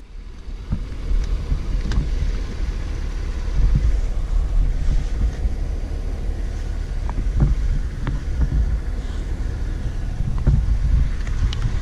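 Truck engine idling, a steady low rumble with a few light ticks.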